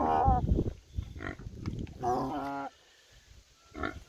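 Pigs calling with several separate pitched vocalisations, the longest about two seconds in and a short one near the end. The hogs are begging to be fed grain.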